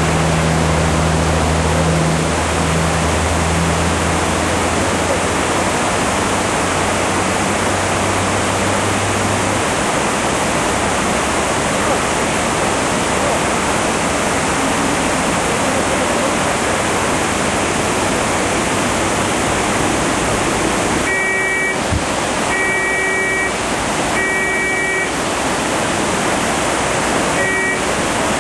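Swollen river's floodwater rushing loudly and steadily. A low engine drone fades out in the first ten seconds, and from about twenty seconds in an electronic beeping comes and goes in several bursts.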